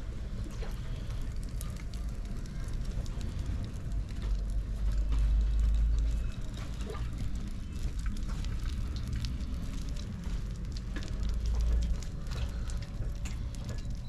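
Wet clay squelching and crackling under the potter's hands as they shape a tall vessel turning on a potter's wheel, with a steady patter of small clicks. Underneath runs a low rumble that swells louder twice.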